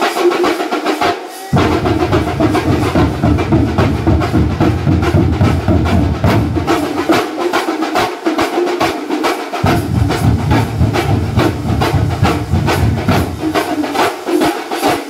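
Thambolam drum ensemble of large shoulder-slung drums beaten with sticks in a fast, driving rhythm. The deep bass drums come in about a second and a half in, drop out for a couple of seconds around the middle, and drop out again near the end while the higher drums keep going.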